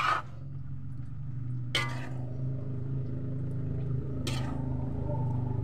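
A spatula scraping and turning kangkong leaves in a large aluminium wok: three short scrapes, one at the start, one a little under two seconds in and one past four seconds. A steady low hum runs underneath.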